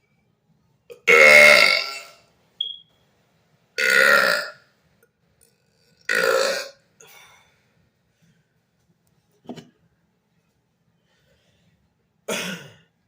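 A man belching deliberately, five burps in about eleven seconds with quiet between them. The first is the loudest and longest, and the fourth is short and faint.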